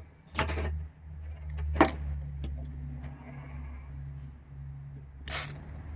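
Short hisses from a WD-40 aerosol can spraying onto a rust-seized car battery terminal. There is a half-second burst near the start, a brief one about two seconds in, and another near the end, over a steady low hum.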